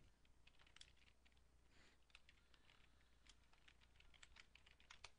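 Faint typing on a computer keyboard: a run of irregular key clicks.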